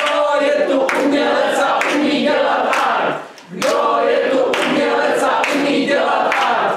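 A group of voices singing together in two loud stretches, broken by a short pause about three seconds in, with sharp hits through it.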